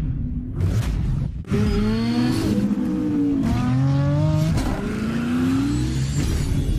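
Race-car style engine sound effect revving up in several rising sweeps of pitch, each falling back before climbing again, after two short whooshes near the start.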